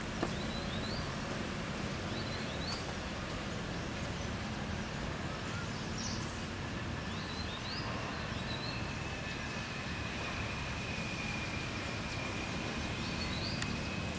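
Outdoor ambience: a steady low rumble, with short rising high chirps every second or two and a thin steady whine in the second half.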